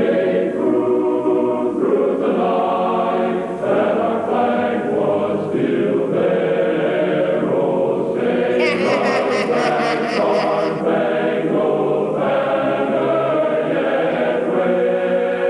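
A choir singing a national anthem in slow, sustained chords, with a brief high shimmer about nine seconds in.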